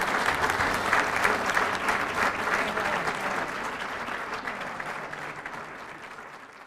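Audience applauding, the clapping gradually dying down and fading out near the end.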